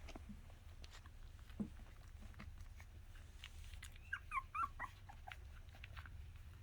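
Miniature Australian Shepherd puppies whimpering: a quick run of short, high squeaks about four seconds in, among small clicks and one soft thump of the puppies moving about, over a steady low hum.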